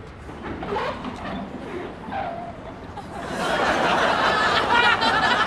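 Studio audience laughing: scattered chuckles at first, swelling into loud laughter from many people about three seconds in.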